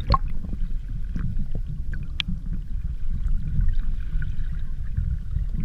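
Underwater sound picked up by a submerged action camera: a low, muffled rumble of water, with a few faint clicks.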